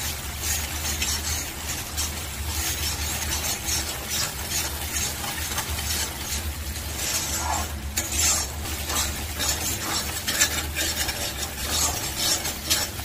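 Spatula stirring and scraping a spice paste as it sizzles in oil in a kadai (wok): the masala is being fried until the oil separates from it. The irregular scrapes sit over a steady sizzle.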